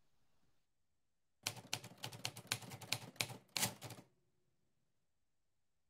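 Typewriter-style keystroke sound effect: a quick run of about twenty sharp clacks, starting about a second and a half in and lasting some two and a half seconds.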